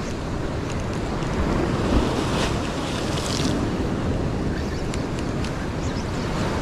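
Ocean swell breaking and washing over a sandstone rock ledge, with wind buffeting the microphone. A louder wash of surf comes about two to three seconds in.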